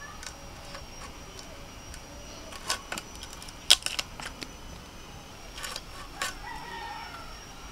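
Scattered sharp clicks and scrapes, the loudest about halfway through, of singi catfish being cut on a boti, a curved blade held upright.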